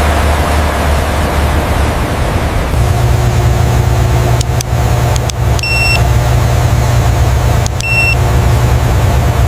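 Heavy engine running steadily. Its low hum steps up in pitch about three seconds in, with a few clicks and two short high beeps, one near the middle and one near the end.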